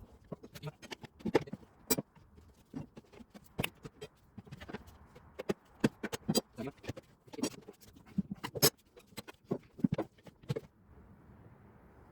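Irregular clacks, knocks and scrapes of steel tire levers and plastic rim protectors working a Michelin Road 6 motorcycle tire's bead over the rim. They stop about ten and a half seconds in.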